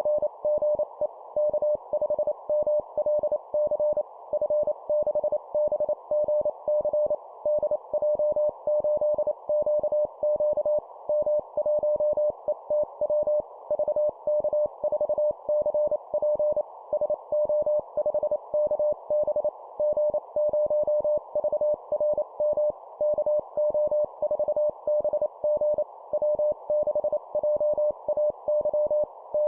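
Morse code (CW) sidetone, a single steady tone of about 600 Hz keyed in quick dots and dashes at 25 words per minute, sending amateur radio call signs. A steady band of hiss runs under the tone and between the characters.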